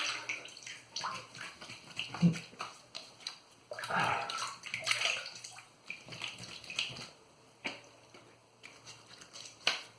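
Water splashing and running in a sink as a safety razor is rinsed of shaving lather after the first pass, in uneven bursts. A couple of sharp knocks near the end.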